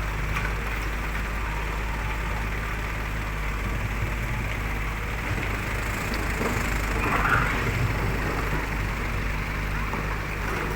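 A motor engine running steadily, a low hum under a noisy background, with a brief louder sound about seven seconds in.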